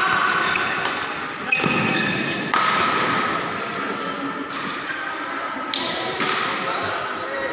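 Badminton play: a handful of sharp racket hits on a shuttlecock, each lingering in the reverberant sports hall, with players' footwork on the court.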